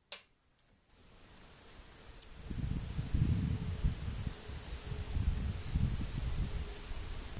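Insects trilling steadily on one high note, starting about a second in, over an uneven low rumble that builds from about two and a half seconds.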